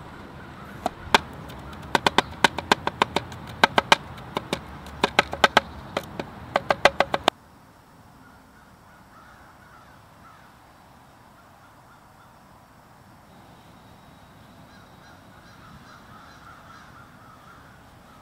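Cleaver chopping garlic on a wooden cutting board: sharp knocks of the blade striking the board in quick runs, stopping abruptly about seven seconds in. After that only a low, quiet background remains.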